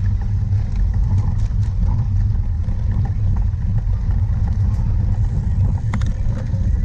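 Steady, loud wind rumble on the microphone of a camera carried by a cyclocross rider while riding, with a few light clicks and rattles.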